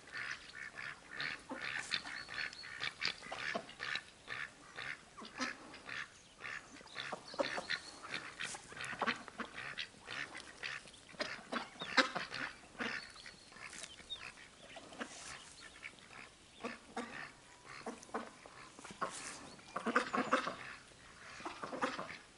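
Ducks quacking, many short calls in quick irregular succession.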